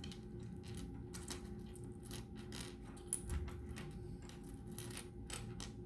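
Loose plastic LEGO pieces clicking and rattling against each other as they are handled and sorted by touch: many quick, irregular small clicks.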